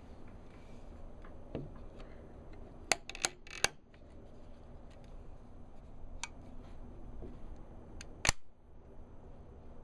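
Metal clicks from the lock of a non-firing replica flintlock pistol being worked: three quick clicks about three seconds in, then a single sharper snap near the end.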